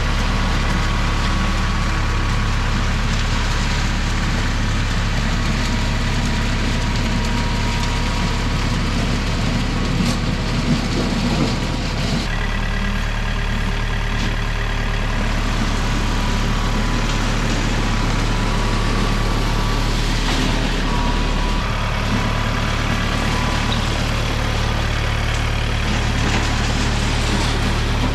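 An engine running steadily at idle, a low steady hum whose pitch shifts abruptly twice.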